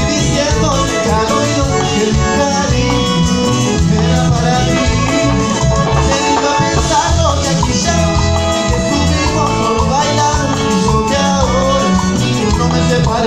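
Live cumbia band playing, electric guitar, bass and keyboard over a steady bass-and-percussion beat, with a singer's voice in the mix.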